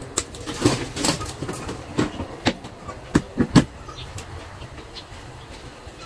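Irregular sharp clicks and knocks from hands working on a washing machine's wiring with tools, about eight of them, the loudest three close together about three and a half seconds in, then stopping.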